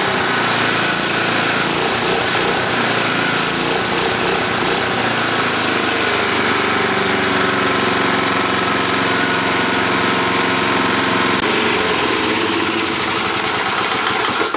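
Tecumseh single-cylinder lawn mower engine running steadily at speed.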